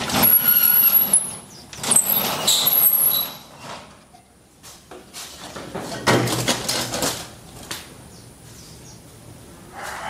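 Cendet (long-tailed shrike) singing in harsh, scratchy bursts laced with thin, very high notes: two bursts in the first three and a half seconds and another about six seconds in.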